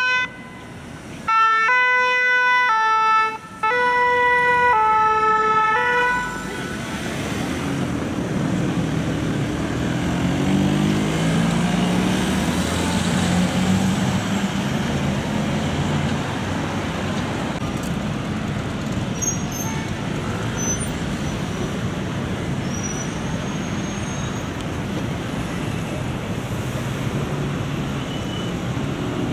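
French fire-brigade ambulance's two-tone siren alternating between a high and a low note in short stretches for about the first six seconds. It then gives way to steady city traffic noise with vehicle engines running.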